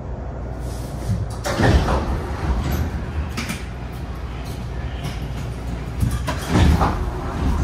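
MARTA rail car standing at a station, a steady low rumble with two heavy thuds about five seconds apart from its sliding passenger doors.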